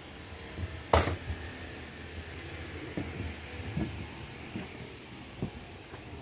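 Footsteps on wooden deck boards, a few soft thumps, with one sharp wooden knock about a second in.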